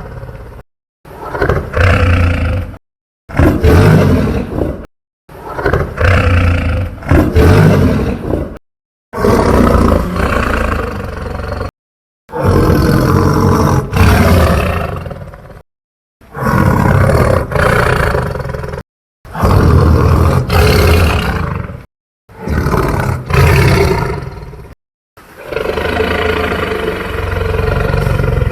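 A series of about nine homemade dinosaur roar sound effects, each two to three seconds long, with a heavy low rumble, separated by short gaps of dead silence. The last roar is held longer.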